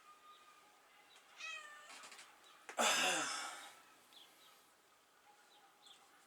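Domestic cat meowing twice: a short, thin meow about a second and a half in, then a louder, rougher meow a second later.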